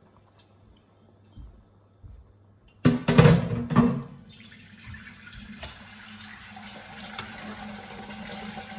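Thin coconut milk splashing as it is poured into a wok of curry, a loud gush about three seconds in. Then a steady hiss as the curry heats, with a spatula clicking and scraping against the wok near the end.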